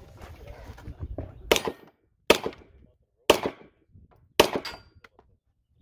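Four handgun shots, roughly a second apart, each sharp with a short echoing tail.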